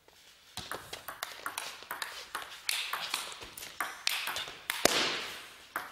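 Table tennis rally: the ball clicking off bats and table in quick, uneven succession, starting about half a second in, with the hardest hit near the end.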